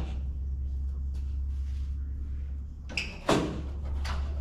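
A few sharp knocks and clunks as a headlight bezel is handled and fitted to the front of the truck, the loudest a close pair about three seconds in, over a steady low hum.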